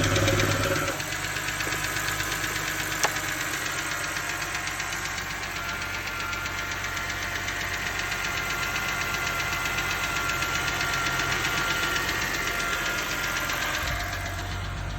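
BMW 328xi straight-six engine running with a rapid, regular knock, which the owner suspects is rod knock. The engine is louder for the first second, then drops in level, and there is one sharp click about three seconds in.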